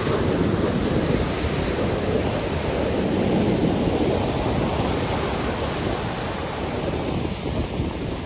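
Ocean surf: large waves breaking and washing in a continuous rush, louder through the first half and easing off toward the end, with wind buffeting the microphone.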